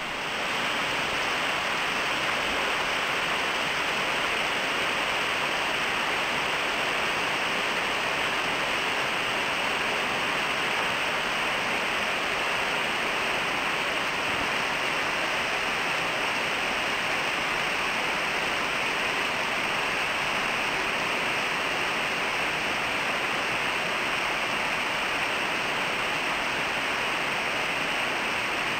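Heavy rain falling steadily on tree leaves, roofs and grass: a dense, even hiss with no single drops standing out. It swells slightly in the first second, then holds level.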